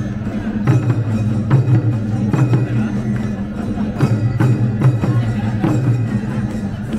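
Japanese festival parade music for a dance group, with a steady low drone and sharp wood-block-like percussion hits a little more than once a second.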